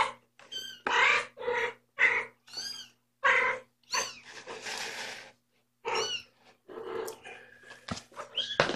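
Domestic cat meowing repeatedly: a string of short meows, one after another with brief gaps, pausing for about a second midway.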